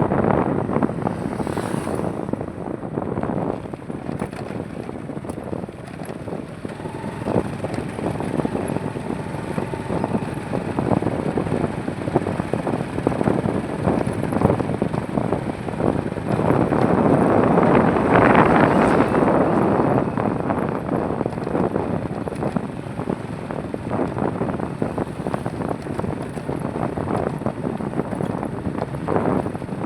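Highway traffic: a steady rush of tyre and engine noise from passing vehicles. One vehicle passing close swells loudest a bit past halfway, then fades back into the flow.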